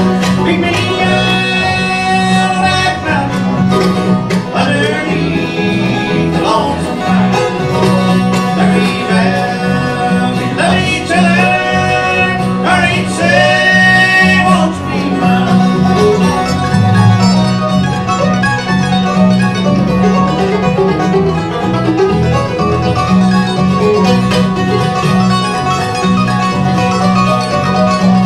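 Bluegrass band playing, with banjo and guitar picking over a steady bass; a lead line slides in pitch through the first half.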